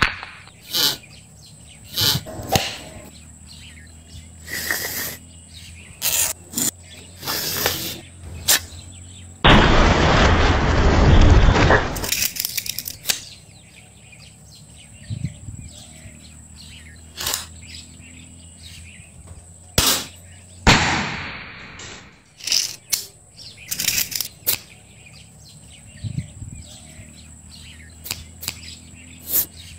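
Sharp clicks and knocks of bamboo and wood as homemade bamboo slingshot toys are handled, loaded and fired, with two longer, louder bursts of noise about 10 and 21 seconds in. Birds chirp in the background.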